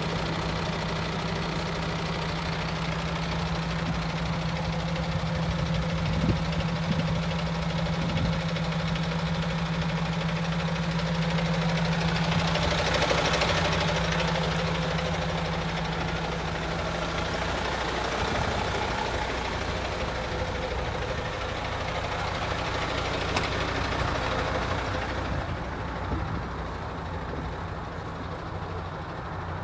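MAN TGX 26.460 tractor unit's straight-six diesel idling steadily, swelling a little about halfway. Near the end it sounds more muffled, heard from inside the cab.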